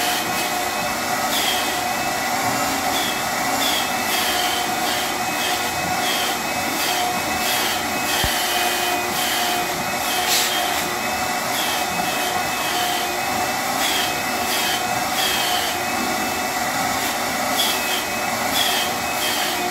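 Vacuum cleaner running steadily as its hose is worked through a dog's thick coat, with a steady whine whose pitch briefly shifts again and again.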